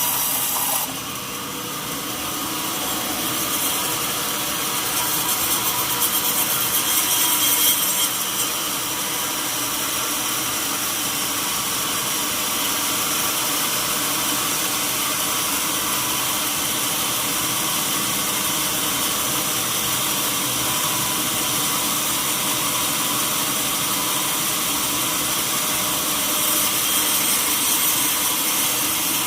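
Sawmill saw cutting through a mahogany log, a steady whining, rasping noise. It dips about a second in, builds to its loudest around eight seconds, then settles into an even cut.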